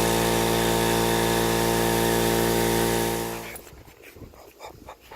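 Central Pneumatic 21-gallon air compressor running steadily during its break-in run, a motor and pump hum with a strong hiss, then stopping about three and a half seconds in.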